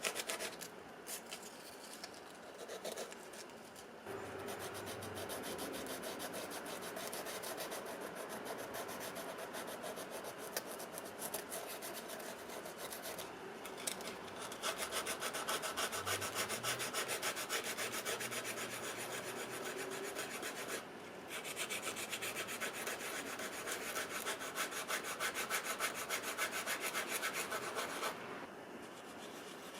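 Sandpaper rubbed back and forth over a sneaker's leather upper: a steady scratchy rasp that starts about four seconds in, breaks off briefly about two-thirds of the way through, and then goes on until near the end.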